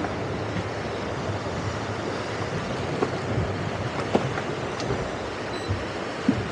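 Wind rushing over the microphone and water washing along a small boat's hull, over the low, steady rumble of the boat's engine running slowly, with a few sharp knocks about three, four and six seconds in.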